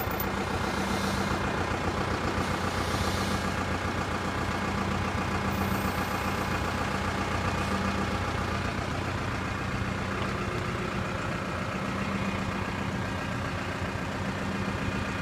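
Tractor engine idling steadily, with a brief rustle of handling near the start.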